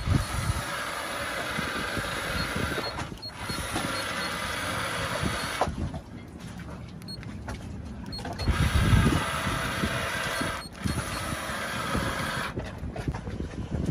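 Steady mechanical running noise aboard a sailboat, with heavy gusts of wind buffeting the microphone about a second in and again near the middle.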